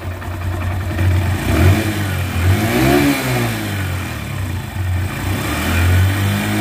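Honda single-cylinder motorcycle engine running at a raised idle and blipped briefly about three seconds in and again at the end. It has just had its clutch basket repaired and its warped clutch pressure plate replaced, and the earlier rattling noise is no longer there.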